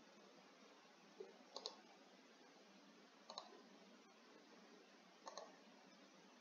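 Faint computer mouse clicks over a low hiss: a single click, a quick double click a moment later, then single clicks about two and about four seconds after that.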